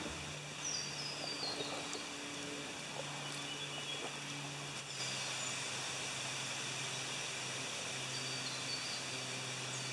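Quiet riverside ambience, with faint birds giving short descending chirping calls twice and a low steady hum underneath.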